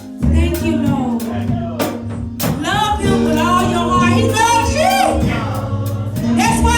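Gospel music with singing over a bass line and steady drum beat.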